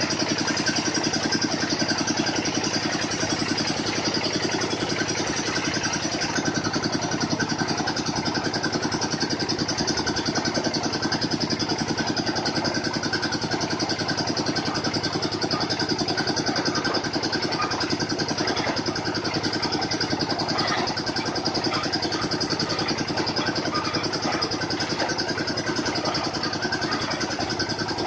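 Engine of a water-well boring rig running steadily at an even speed, with a fast, regular firing pulse.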